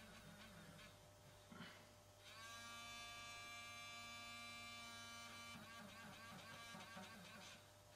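Faint steady electric hum of a small airbrush compressor, with faint wavering tones over it and one steady held tone from about two seconds in to past the middle.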